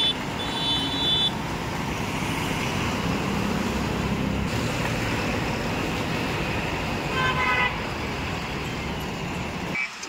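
JCB 3DX backhoe loader's diesel engine running steadily. Short high beeps sound in the first second, and the horn sounds briefly about seven seconds in.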